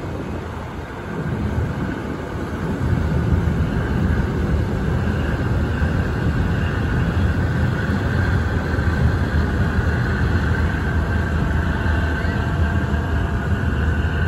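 Tugboat's diesel engines running as it pushes a barge close past, a steady low rumble that grows louder about two seconds in and then holds.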